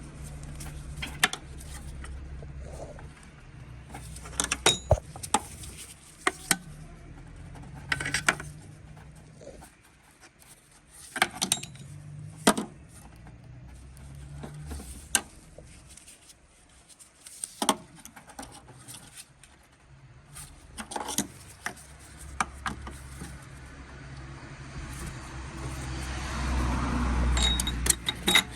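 Irregular sharp metallic clinks and knocks of tools and parts being handled. Underneath is a low steady hum that swells louder near the end.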